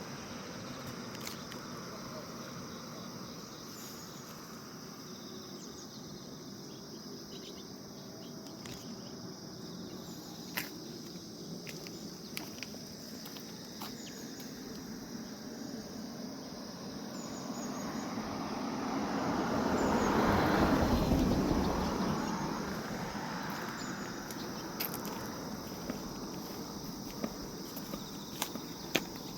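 Grass insects such as crickets chirring steadily in a high band. A vehicle passes, its rushing noise swelling to the loudest point about twenty seconds in and then fading.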